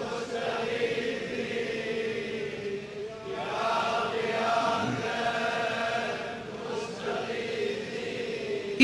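Quiet background vocal chant: voices holding long, drawn-out notes behind the supplication, with a new phrase rising in about three and a half seconds in and again near five seconds.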